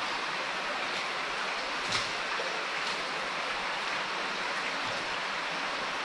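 Creek water rushing steadily through a stone culvert tunnel, with a few footsteps in the water, the loudest about two seconds in.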